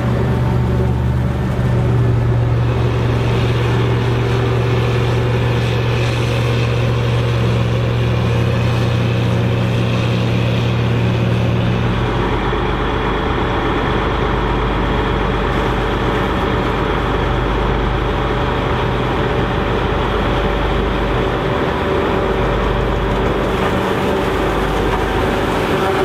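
Diesel engines of a tractor and a self-propelled forage harvester running steadily under load while chopping maize. The low engine tone shifts lower about halfway through.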